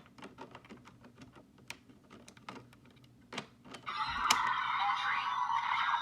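A string of small plastic clicks and taps from a Bandai Kamen Rider Geats roleplay toy being handled. About four seconds in, the toy's electronic sound effect starts and gets much louder, with tones sliding up and down.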